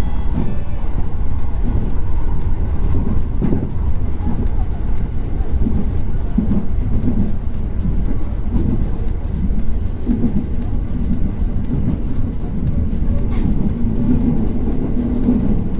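Train running: a steady low rumble with no clear beat.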